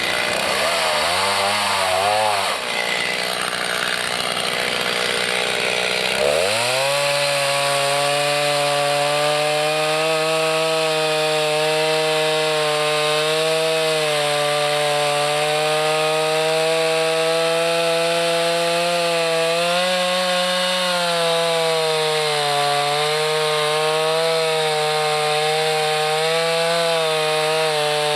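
Chainsaw engine running. For the first few seconds its pitch rises and falls; about six seconds in it climbs and holds at a high, steady pitch with small dips.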